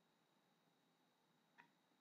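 Near silence: room tone, with a single faint click about one and a half seconds in.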